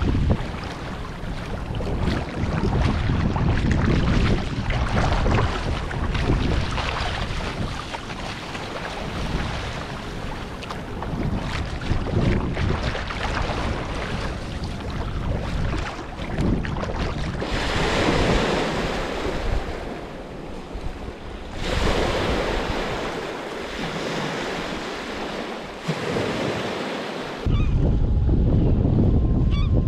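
Choppy waves splashing around a sea kayak as it is paddled through open water, with wind on the microphone. Near the end the sound switches abruptly to heavier wind rumble on the microphone.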